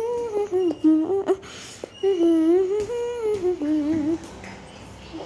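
A young girl humming a wandering tune in two long phrases, with a few light knocks between them.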